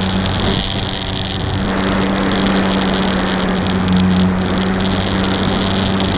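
HobbyZone Super Cub RC plane's electric motor and propeller heard from an onboard keychain camera in flight, a steady pitched drone over a hiss. The drone drops away about half a second in and comes back about a second later.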